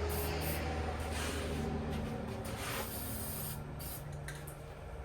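Aerosol can of spray paint hissing in several short sprays.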